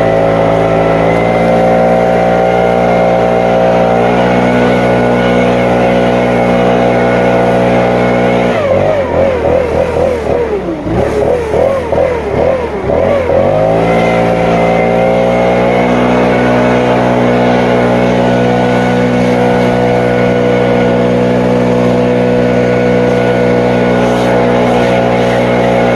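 Stihl BR600 backpack leaf blower's 4-MIX engine running at high throttle, eased off about eight seconds in with the pitch wavering and dipping for several seconds, then brought back up to full throttle and held steady.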